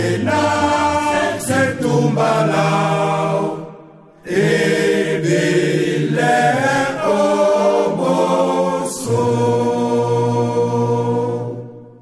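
Voices singing a chant-like song together. The singing drops away briefly about four seconds in, comes back, and fades out near the end.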